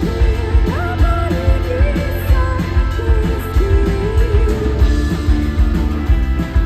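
Rock band playing: a steady drum beat under a sustained melodic lead line that slides up in pitch about a second in.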